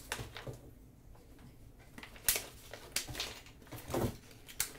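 Paper packaging being handled: scattered rustles and sharp taps, with a quieter stretch early on.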